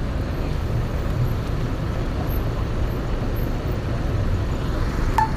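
Large coach bus engine running with a steady low rumble as the bus manoeuvres slowly, with one short sharp sound near the end.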